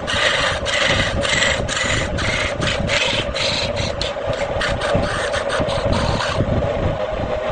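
Wood lathe running with a steady hum while a turning tool scrapes the spinning wood in short repeated strokes. The cutting stops about six seconds in and the lathe runs on.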